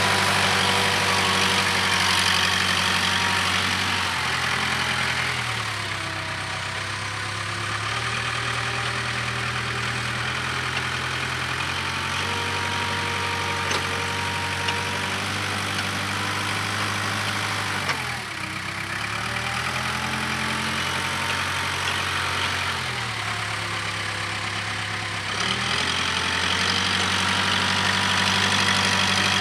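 Case 580K backhoe loader's diesel engine running as the loader works. Its note drops and eases off about four seconds in, dips briefly about two-thirds of the way through, and rises again near the end.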